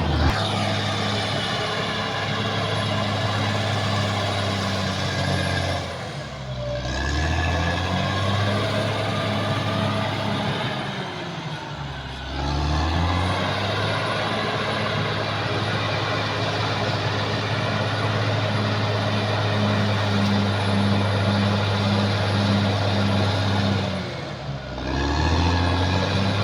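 Caterpillar D6R XL bulldozer's diesel engine running at high revs, its note sagging briefly and picking back up three times.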